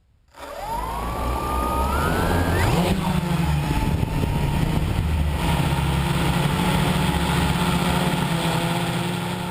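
Electric motors of a multirotor FPV drone spinning up, a rising whine for about two seconds, then running at a steady hum.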